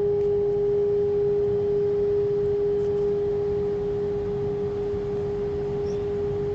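Constant machinery hum from building plant equipment: one steady, unbroken tone over a low rumble, a persistent drone filling the courtyard.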